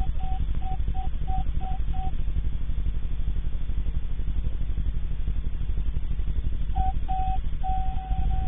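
Short bursts of a steady mid-pitched whine from a pan-tilt security camera's motor turning as it tracks motion. There are several brief bursts in the first two seconds and a longer run near the end. A steady low hum with a fast flutter runs underneath, heard through the camera's own microphone.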